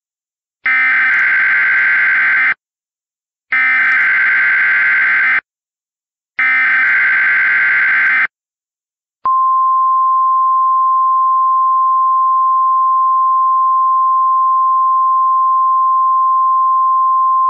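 Emergency Alert System SAME header: three bursts of warbling digital data tones, each about two seconds long, then NOAA Weather Radio's steady 1050 Hz warning alarm tone starting about nine seconds in. Together they signal the activation of a new warning, here a hurricane warning.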